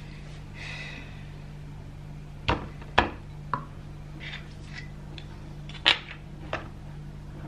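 Kitchen clatter: a metal fork knocking and scraping against a ceramic bowl as broccoli is pushed into a plastic container, and dishes being handled. There are about five sharp clinks, the loudest about three seconds in and again near six seconds.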